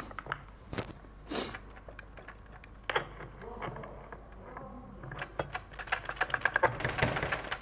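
Overdrive clutch drum of an A8LF2 eight-speed automatic transmission being turned back and forth as it is lowered into the transmission case, its clutch plates clicking against the splines as they seat. Scattered clicks at first, then a fast continuous rattle of clicks from about five seconds in.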